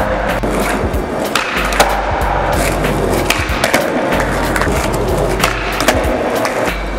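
Skateboard rolling on smooth concrete, with several sharp clacks of the board hitting the ground, over background music.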